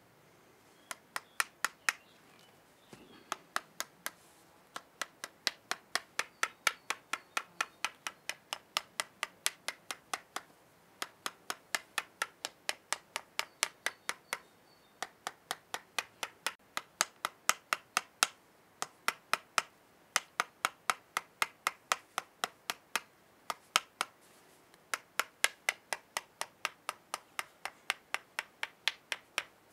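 Rapid, sharp taps of a knife handle on the bark of a green stick, about five a second in runs with short pauses, beating the bark loose so it can be slipped off whole for a bark whistle.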